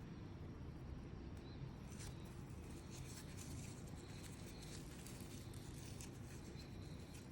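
Faint rustling and light clicks of hands handling watch packaging, over a steady low hum.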